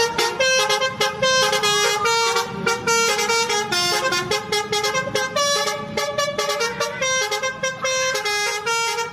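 Indonesian 'telolet' bus horn, a multi-tone musical air horn, playing a quick running tune of short notes that step up and down in pitch.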